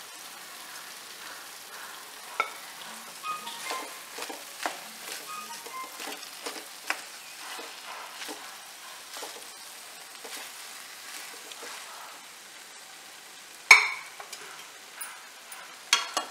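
Wooden spatula stirring and scraping cooked rice into vegetable masala in a metal pan, with many small irregular scrapes and taps over the pan's sizzle. A sharp knock of the spatula on the pan comes near the end, the loudest sound, with a few more knocks as it ends.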